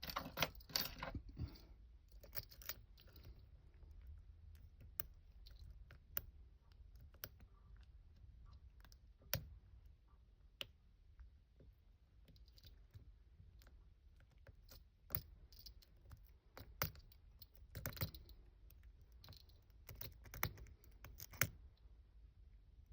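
A Twin Peak lock-picking rake clicking and scraping irregularly against the pins inside a large Union padlock as it is raked, with a faint steady low hum underneath.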